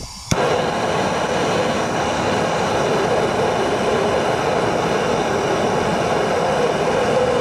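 Handheld gas torch lit with a sharp pop about a third of a second in, then burning with a steady hiss, heating seized bolts to free them.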